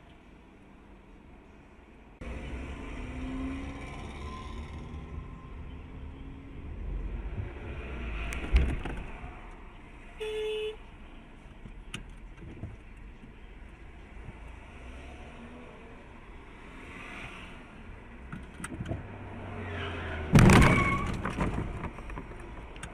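Dashcam recording of a car's running and road noise, with a knock at about eight seconds, a short beep at about ten seconds, and a loud sudden noise near the end as a minibus presses in against the car's front.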